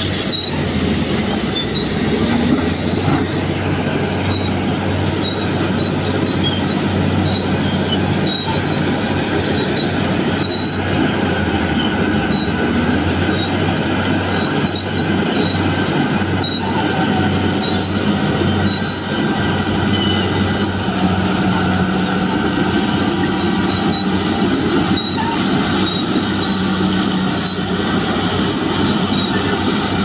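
Diesel engines of a Kobelco crawler excavator and a BEML crawler bulldozer running under load in a steady drone, with short high squeals of steel crawler tracks about once a second.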